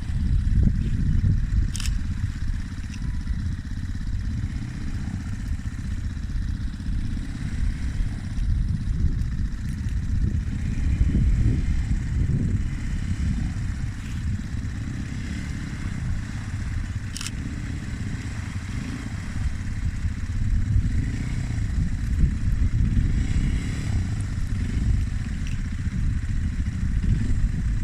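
ATV engine running during a ride, a continuous uneven low rumble, with a few sharp clicks.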